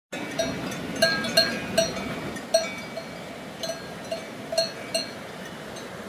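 Cowbells on grazing cows clanking irregularly, about ten ringing strikes, most of them in the first half, over the steady rush of a mountain river.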